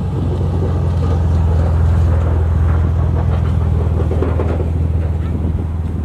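A motor engine running steadily at a constant low pitch, a loud drone.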